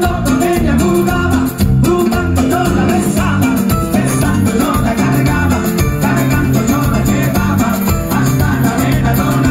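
Live Latin band music with a male lead singer over a steady, bass-heavy beat, loud and recorded from within the crowd.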